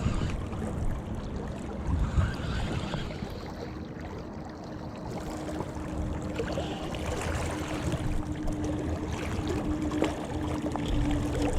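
River water running, with low rumbling noise on the microphone; a steady hum comes in about five seconds in and holds.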